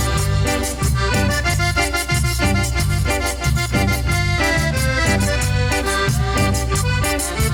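Cumbia band playing an instrumental passage without singing: a sustained melody line over bass and a steady, driving percussion beat.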